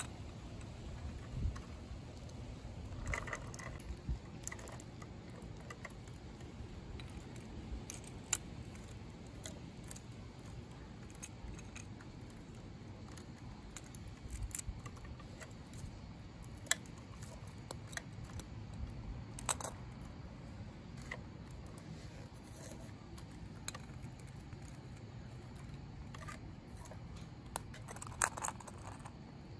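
Scattered small clicks, taps and rattles of hands handling diecast scale-model garbage trucks and their toy trash carts, over a low steady background rumble.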